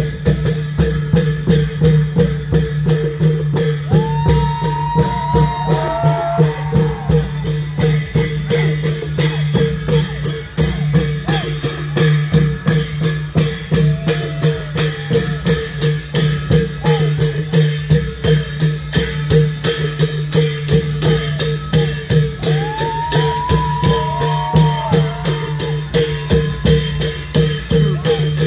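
Thai klong yao long-drum ensemble playing live: a steady, fast, unbroken beat of drums and cymbals over a held low drone, with two high sliding calls, one about four seconds in and one near the end.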